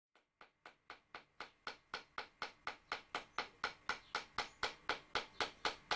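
Traditional Polynesian hand-tapped tattooing: a wooden mallet striking the handle of a toothed bone tattooing comb in a steady rhythm of about four taps a second, fading in and growing louder.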